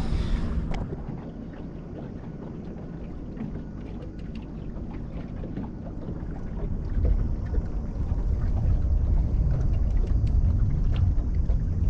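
Low, steady rumble of wind buffeting the microphone in a small boat, louder from about seven seconds in, with scattered faint clicks and knocks. A brief hiss cuts off under a second in.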